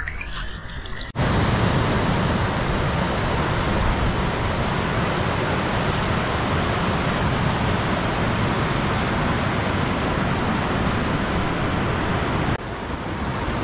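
Whitewater rapid rushing: a dense, steady wash of water noise that starts abruptly about a second in.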